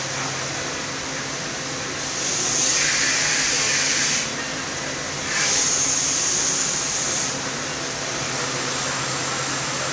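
Weinig Conturex CNC woodworking machining centre running with a steady hum. Twice, for about two seconds each, it rises into a loud hiss as the spindle's cutter mills the wooden part, throwing off chips.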